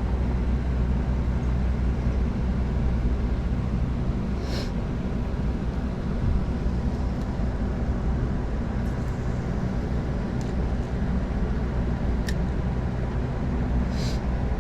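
Steady low mechanical rumble like a running engine or machinery, unchanging throughout, with a few faint clicks.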